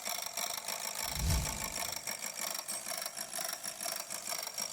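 Chevrolet Aveo four-cylinder engine running with a fast, steady knocking, a sign of oil starvation: the oil pump strainer is blocked by a plastic bag and the crankshaft main and rod bearings are damaged. A low thump sounds about a second in.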